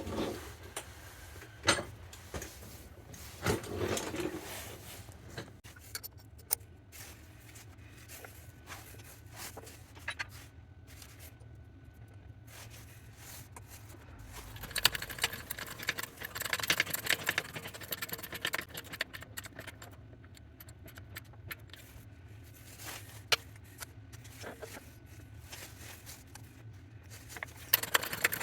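Small metal parts clinking, knocking and scraping as they are handled and set in place on a hand press. Scattered sharp knocks, with a longer stretch of rattling about halfway through.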